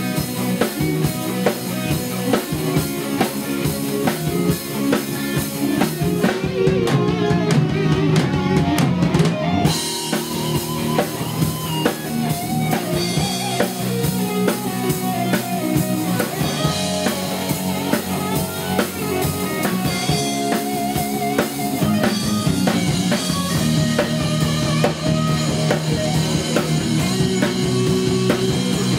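Rock band playing live: two electric guitars, bass guitar and a drum kit, with a singer on microphone. The cymbals drop out for a few seconds about six seconds in, then come back.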